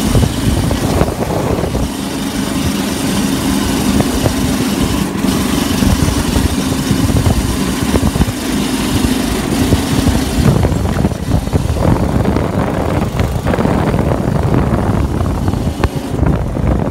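Go-kart's small engine running as the kart drives along a paved road, over a dense low rumble. The steady engine note drops away about ten seconds in, leaving a rougher, uneven rumble.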